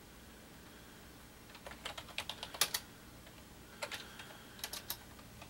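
Typing on a computer keyboard: a quick run of keystrokes starting about a second and a half in, then a few more single keypresses and a short burst near the end.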